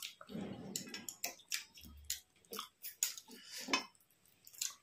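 Eating from a plate: a string of irregular light clicks and clinks of food and fingers or utensils against the plate, with soft mouth sounds.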